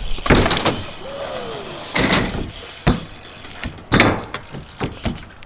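BMX bike tyres rolling over concrete and ramps, broken by several sharp knocks and clatters of the bike hitting the ramps. The loudest come about two and four seconds in.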